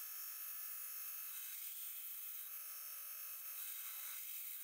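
Belt grinder running while a steel knife blade is ground on its belt to form the bevel: a steady high whine and hiss with no low end.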